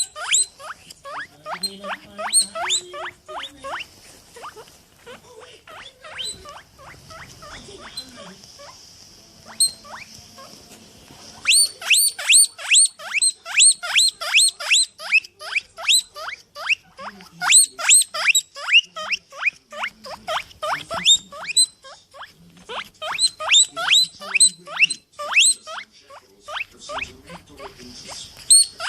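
A small animal squeaking over and over, each squeak a quick high note that drops steeply in pitch, about three or four a second. The squeaks are fainter for the first several seconds, then loud and dense from about twelve seconds in, with one short break near the end.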